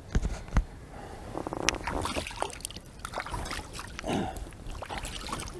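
Lake water splashing and dripping off hands just rinsed over the side of an inflatable boat, with soft knocks and rustling as someone shifts about in the boat. Two low thumps come in the first second.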